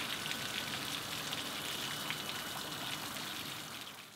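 Water from a garden-hose flushing attachment on a boat's sterndrive leg spraying out around the propeller and splattering onto wet tarmac, a steady rain-like hiss. It fades out near the end.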